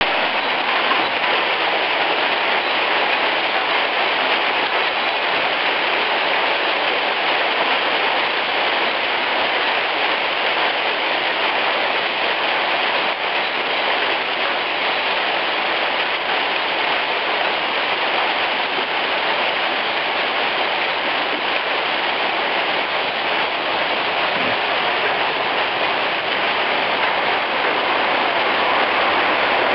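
Heavy hailstorm: small hailstones falling steadily and striking a stone-paved street, a dense, even patter that does not let up.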